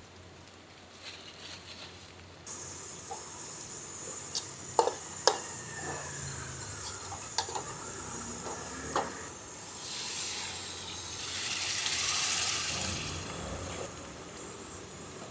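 Food stir-frying in a wok with a steady sizzle, and a metal ladle scraping and clinking against the pan several times. Later the sizzling swells to a louder hiss as liquid goes into the hot wok, then eases off.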